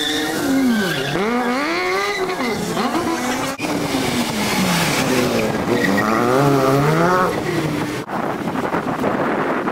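Rally car engines revving hard as the cars pass, the pitch repeatedly climbing and dropping with gear changes and throttle lifts. The sound breaks off abruptly twice, and after the second break there is only a fainter, rushing engine sound with no clear pitch.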